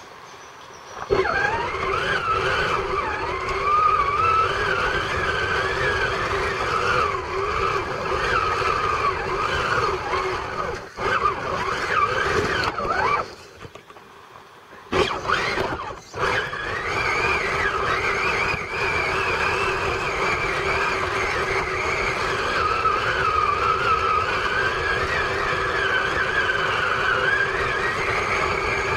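Traxxas Summit radio-controlled truck's electric motor and gearbox whining, the pitch wavering up and down with the throttle. It drops out briefly about halfway through, then picks up again.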